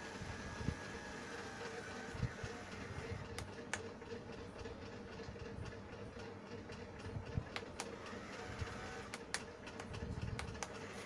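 Small electric motor of a homemade rocket-launch model running steadily as it winds the rocket up its string guide, a faint even hum with scattered sharp clicks.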